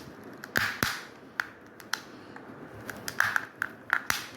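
Plastic snap clips of a Daikin air-conditioner remote's case clicking as the case is pried apart: an irregular series of sharp clicks, some louder than others.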